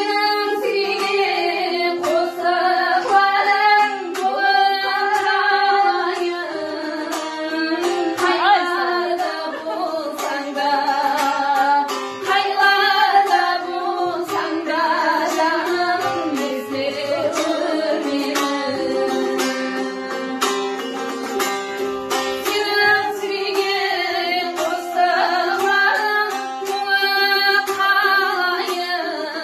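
A woman sings a Karakalpak folk song, accompanied on the dutar, a two-stringed long-necked lute, plucked in rapid, even strokes beneath the melody.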